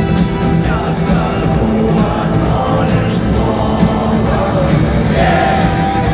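Rock band playing live in a large arena, recorded from the audience: electric guitars, bass and drums, with a singing voice.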